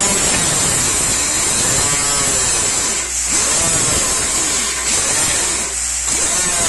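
Handheld cut-off wheel running at a high whine that wavers up and down in pitch, easing briefly twice, then grinding into the metal outer sleeve of a motorcycle exhaust muffler near the end.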